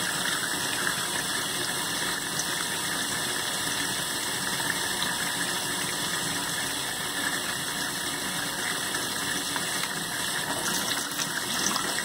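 Tap water running steadily into a stainless-steel sink, an even rushing that holds at one level throughout.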